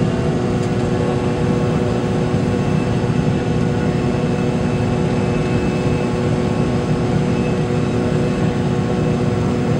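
Steady cabin noise of a McDonnell Douglas MD-80 in flight: the rush of air and the drone of its tail-mounted Pratt & Whitney JT8D turbofans, with a few steady hum tones and no bangs or changes.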